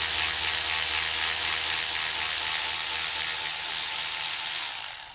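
Milwaukee cordless electric ratchet running steadily, turning a tap held in an 8-point socket to chase the threads of a bolt hole in a driveshaft yoke that was clogged by dirt dauber nests. The motor stops shortly before the end.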